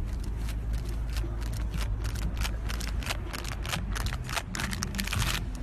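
Low, steady rumble of wind buffeting a phone microphone, with a string of short sharp clicks and crackles that come thicker after about two seconds.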